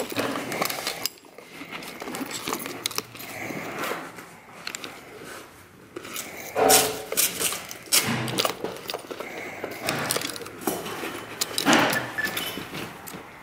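Handling of a Nikon SLR film camera with a zoom lens in a padded camera bag: rustling of the bag and jingling of the strap's metal clips, with scattered clicks and a few louder knocks.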